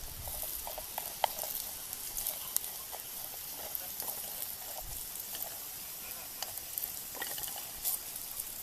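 Food sizzling in a frying pan: a steady hiss with scattered sharp pops and crackles, the loudest pop about a second in.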